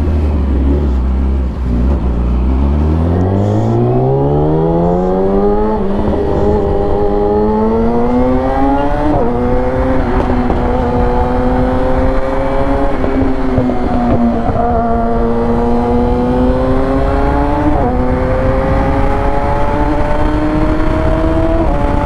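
Yamaha R6's inline-four engine pulling away from a low idle and accelerating through the gears: its pitch rises in each gear and drops at each upshift, about 6, 9, 14 and 18 seconds in, over steady wind noise.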